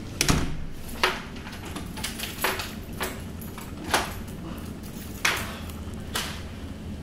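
A series of about seven sharp knocks at uneven intervals, each with a short ring-out. The first one is the loudest.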